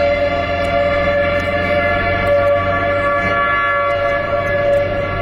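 Outdoor tornado warning sirens sounding a steady wail held at one pitch, the alert for a tornado warning.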